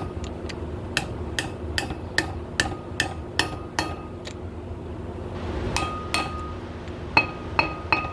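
Metal seal driver tapped with a hammer, driving a new grease seal into a truck's front wheel hub. Light, ringing metallic taps come about two to three a second, stop for a second or two midway, then start again.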